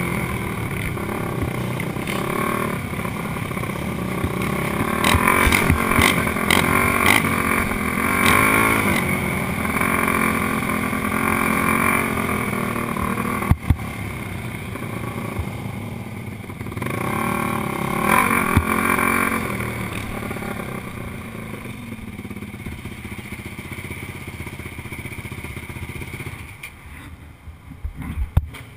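Sport quad's engine heard from the rider's seat, running under throttle on a dirt track with several sharp clicks, then easing to a lower, quieter running with one short rev as the quad rolls slowly, and dropping away near the end.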